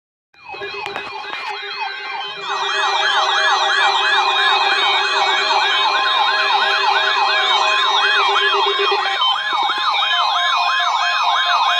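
Two NOAA weather radios sounding their electronic alert sirens for a Required Weekly Test. Fast, repeating rising-and-falling warbles overlap; a second, louder siren joins about two seconds in.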